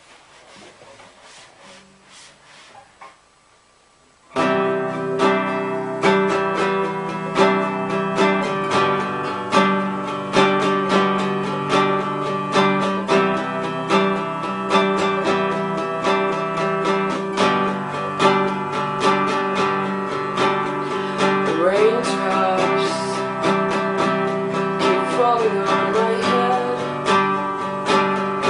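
Acoustic guitar strumming in a steady rhythm, starting abruptly about four seconds in after a few seconds of faint background noise.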